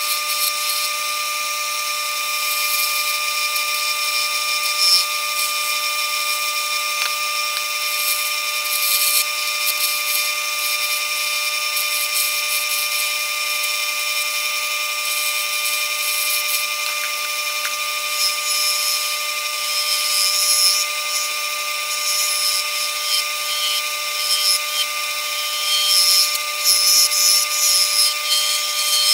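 Old Delta bench-top wood lathe running with a steady whine while a hand-held turning tool cuts a spinning acrylic pen blank, giving a continuous hissing scrape. Near the end the cutting gets louder and more uneven.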